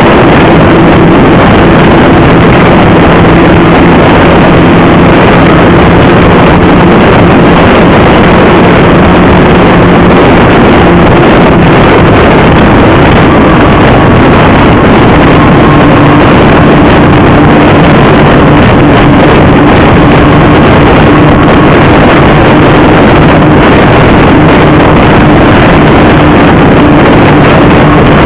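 Motorcycle engine running at steady highway speed, heavily buffeted by wind on the microphone; the engine note steps down a little about halfway through.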